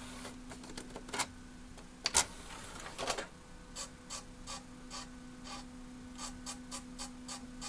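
CD tray of a reproduction stereo's CD player clunking shut, then its Sony KSS213C laser pickup mechanism clicking over and over, about three clicks a second, as it tries and fails to read the disc's table of contents. A steady low hum runs underneath.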